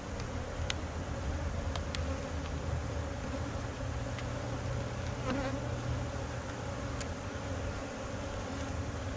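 Honey bees buzzing in a steady hum from an opened nuc as its frames are lifted out, with a few short sharp clicks.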